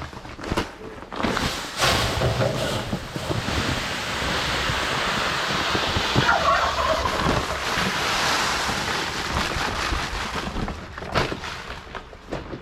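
A flock of chickens clucking and calling over a steady rush of noise, with a burst of louder calls about halfway through.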